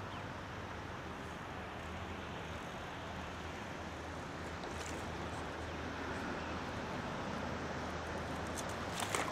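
A boat's motor hums steadily under a wash of wind and water noise. Near the end there are a few short sharp splashes as the hooked carp thrashes at the surface.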